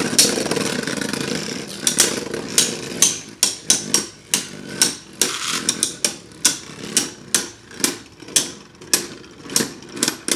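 Two Beyblade Burst spinning tops whirring in a plastic stadium, the whir fading over the first few seconds. From about two seconds in they clack against each other again and again, two or three sharp hits a second.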